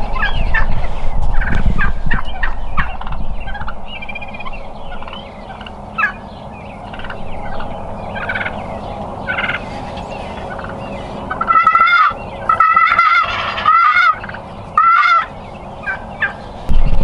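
Merriam's wild turkey toms gobbling at close range: scattered softer calls at first, then four loud, rattling gobbles in quick succession about two-thirds of the way through.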